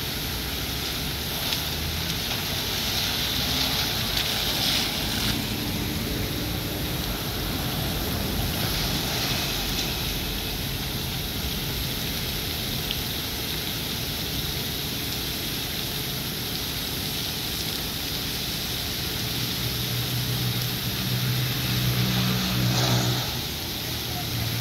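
Water from a burst underground main jetting up in a tall spray, a steady rushing hiss. A vehicle engine running close by shows up near the end.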